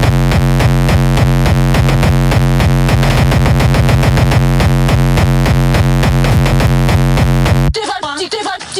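Punchcore (hard, distorted electronic dance music): a held, buzzing synth chord over a very fast, even roll of sharp hits. Near the end the music cuts out for a spoken voice sample.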